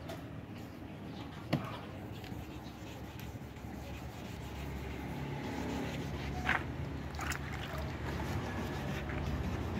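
Low steady hum of a running motor, growing slightly louder, with a sharp click about a second and a half in and a short high squeak about six and a half seconds in.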